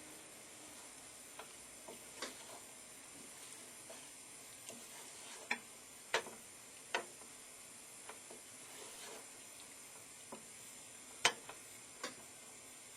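A spoon clicking and knocking against a saucepan at irregular moments while stirring chocolate and cream melting together, over a faint steady hiss.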